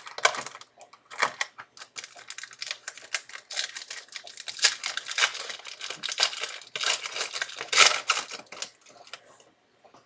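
Football trading cards being handled and flipped through, with quick papery rustles, flicks and clicks of card stock and packaging that stop about a second before the end.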